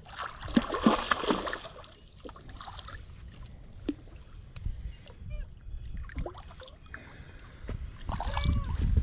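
A hooked catfish splashing and thrashing at the water's surface, loudest for about the first two seconds, then smaller splashes.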